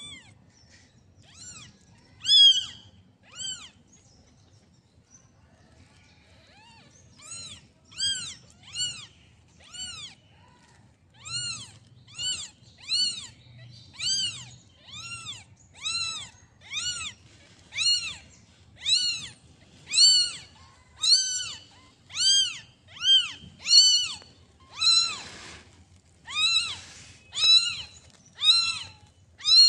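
Newborn kittens mewing: high, thin cries that rise and fall in pitch. There are a few cries at first, then a pause of a few seconds, then about one cry a second for the rest, growing louder toward the end.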